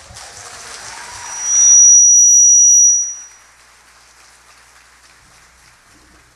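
Theatre audience applauding, with a loud, piercing high whistle held for about two seconds; the applause drops away about three seconds in, leaving a faint hiss.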